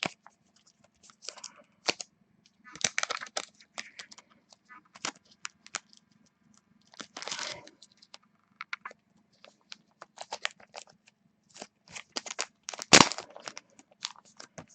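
Trading cards and their plastic packaging being handled: scattered rustling and crinkling with many small clicks, and one loud sharp snap near the end, over a faint steady low hum.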